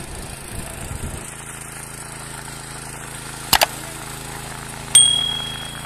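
Mini power weeder's small engine running steadily. Two quick clicks come about three and a half seconds in, and a sharp bell-like ding about five seconds in rings and fades; these are the sound effects of a subscribe-button animation.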